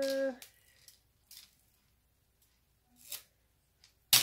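Metal jewelry chain handled on a tabletop: faint rattles and rustles, ending in a sharp clack just before the end as it is set down. A short steady tone sounds right at the start.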